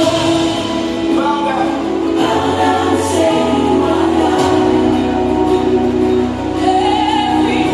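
A choir singing gospel music, many voices holding sustained notes together.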